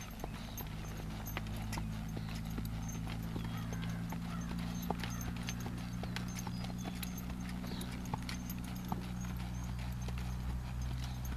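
Quarter horse trotting on a dirt track, its hoofbeats sounding as scattered clip-clops, with a steady low hum underneath.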